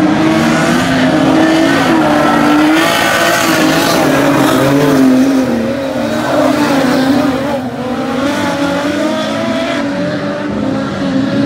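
Several dirt-track speedway race cars running hard around the track, their engines revving, several pitches rising and falling at once as the cars go through the corners. Loudest in the first five seconds, as a pair of cars comes past close, then slightly quieter.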